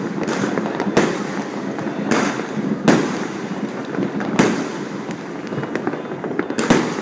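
Fireworks going off: a sharp bang every second or two over a steady, dense crackle of smaller pops.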